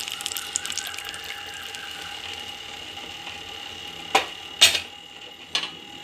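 Tamarind water being stirred into hot oil and sautéed onion, garlic and tomato in a kadai with a wooden spatula: a crackling sizzle that dies down to a soft hiss within the first second or so as the liquid cools the pan. Then three sharp knocks from about four seconds in, the second the loudest.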